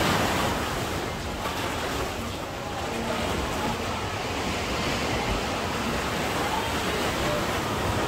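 Sea surf washing steadily onto a beach, with wind rumbling on the microphone.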